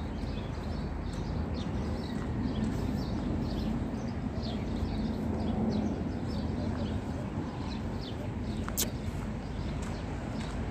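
Steady wind buffeting the microphone, with small birds giving many short, high chirps over it. A single sharp click comes near the end.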